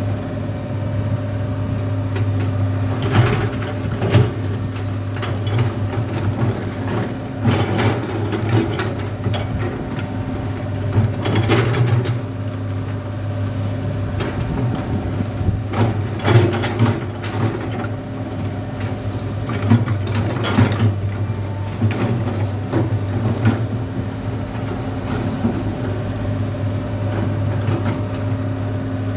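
Komatsu PC200 excavator's diesel engine running steadily, with clattering and scraping noises every few seconds as the bucket digs gravel.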